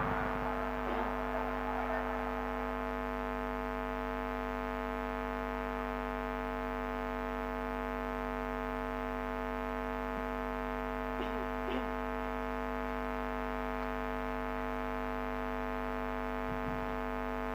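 Steady electrical mains hum through a public-address sound system, an even buzz with many overtones that holds unchanged.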